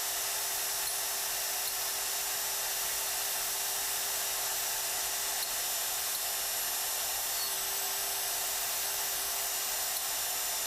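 Motor of a Hougen 10950 cutter-sharpening machine running steadily, a high whine over an even hiss.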